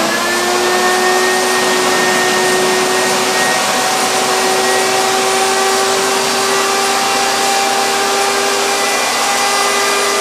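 Spindle motor of a PhlatPrinter MKII CNC machine running steadily at full speed, a constant whine over a rushing air noise.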